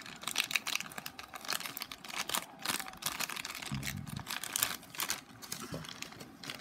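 Thin clear plastic bag crinkling as fingers pick at it and pull it open, a steady run of quick, sharp crackles.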